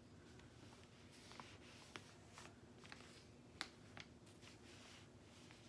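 Near silence, broken by a few faint, short ticks and rustles of small plastic bags of diamond-painting drills being handled.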